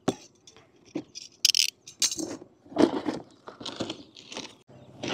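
Unboxing noises: a string of short rustles, scrapes and light clinks as a toy RC car and its parts are pulled out of a cardboard box and its packing.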